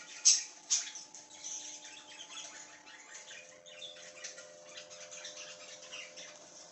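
A flock of budgerigars chirping and chattering, with two loud, sharp calls in quick succession about half a second in.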